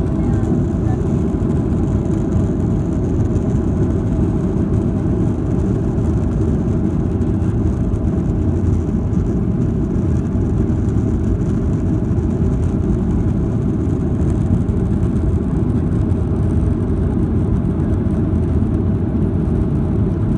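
Airliner cabin noise during the climb after takeoff: the jet engines running and air rushing past the fuselage, heard inside the cabin as a steady low rumble with a few faint steady tones over it.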